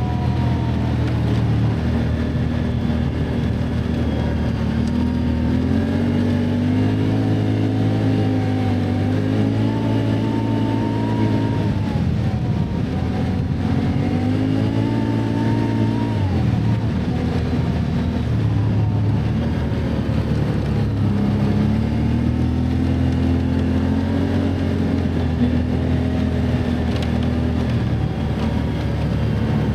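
Can-Am ATV engine running under changing throttle on a trail ride, its pitch climbing and dropping several times as the rider speeds up and eases off.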